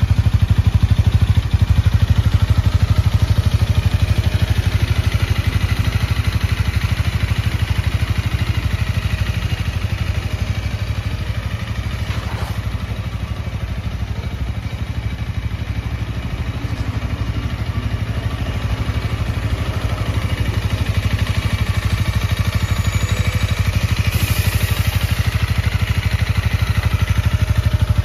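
Honda Rebel 250's single-cylinder engine idling steadily with an even, fast low thrum. It grows somewhat louder near the end as the exhaust muffler comes close.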